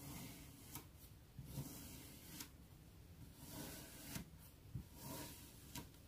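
Crinkle-cut wavy metal blade slicing down through kinetic sand, several faint soft crunchy cuts one after another, with a few sharp clicks between them.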